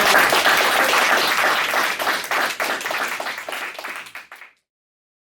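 Applause: many hands clapping, slowly dying down and then cutting off abruptly about four and a half seconds in.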